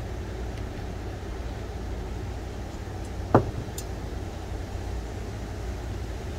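A small glass bottle of citronella oil set down on a tabletop with a single sharp knock about three seconds in, over the steady low rumble of a propane camp-stove burner turned down low.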